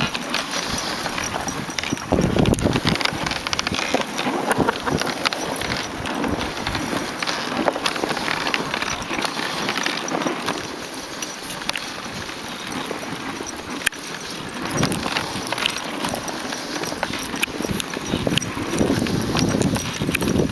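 Dog sled moving over snow: a steady scraping hiss of the runners with a continual clatter of clicks and knocks from the sled and the running team.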